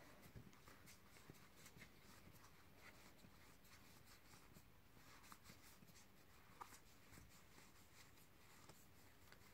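Near silence, with faint soft ticks of Dinosaur King trading cards being slid one past another in the hand.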